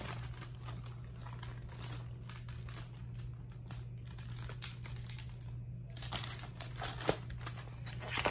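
Paper and cardboard rustling of a hardcover picture book being handled and opened, with a couple of sharper rustles about seven and eight seconds in, over a low steady hum.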